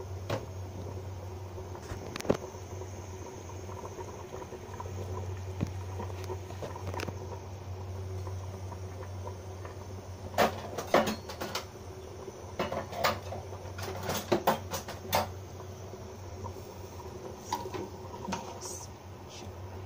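A pot of chicken feet soup boiling on the stove: irregular bubbling pops and crackles over a steady low hum, with the pops clustering in the middle. Near the end a metal ladle clinks against the pot.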